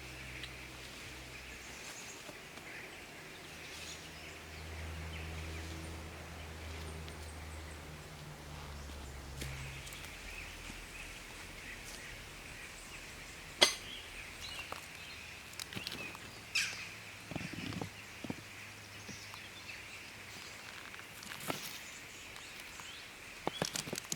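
Campfire burning outdoors: a few sharp isolated pops and cracks from the burning wood, the loudest about halfway through, over a steady high-pitched forest background hiss.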